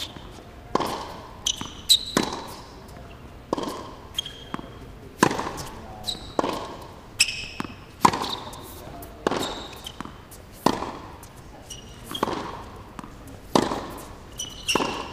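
Tennis rally: sharp pops of racket strings hitting the ball and the ball bouncing on the hard court, about one hit every second, each echoing around the empty stadium. Short high squeaks of tennis shoes on the court come between the hits.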